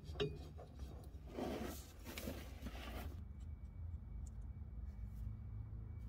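Faint handling noise of a bolt being fitted through a sway bar link and its axle bracket: a few small metallic clicks, then soft rustling, over a low steady rumble.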